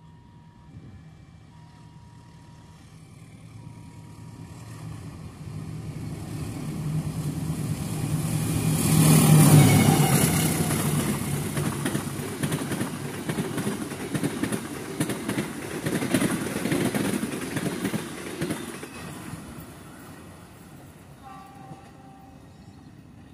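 Diesel-hauled passenger train approaching with the locomotive's engine droning, growing louder until it passes close about nine to ten seconds in. The carriages' wheels then clatter over the rail joints in a fast rhythm that fades away near the end.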